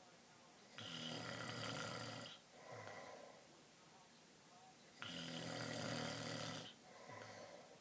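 Man snoring loudly in his sleep: two long snores about four seconds apart, each followed by a shorter, softer breath.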